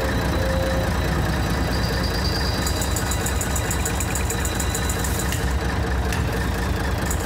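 Old diesel minibus engine idling with a steady low rumble. A rapid, even, high-pitched ticking comes in twice, for about three seconds from a few seconds in and again near the end.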